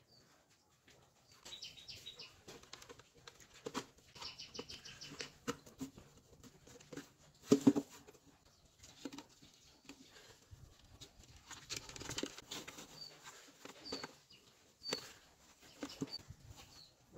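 Handling sounds of a PVC plastic box and its wiring: scattered light clicks, taps and rustles, with one louder double knock about halfway through as the box is turned over and set on the table.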